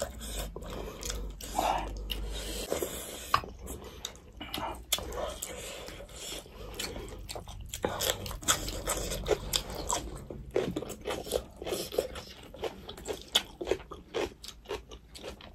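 Close-up eating sounds: chewing and biting with irregular crunches, as two people eat rice, fish and raw red pepper by hand.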